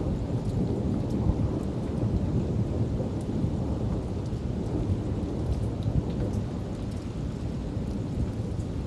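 Monsoon thunderstorm: a continuous low rumble of thunder over steady rain, with faint scattered raindrop ticks.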